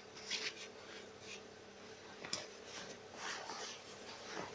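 Faint rustling and brushing of denim jeans being moved and smoothed by hand on a table, in short irregular scrapes with a light tick a little past the middle.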